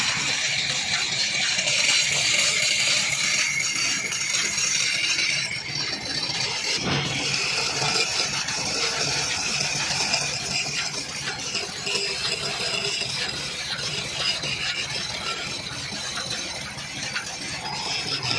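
Belt-driven wood lathe running while a hand-held chisel cuts a spinning wooden churn-stick spindle: a steady scraping hiss of the cut over the low hum and rattle of the lathe, with a brief knock about seven seconds in.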